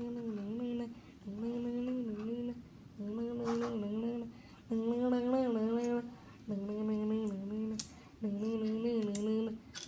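A voice humming or singing a wordless tune in six short phrases of about a second each, with short gaps between them and only small dips in pitch. A few sharp clicks sound in between.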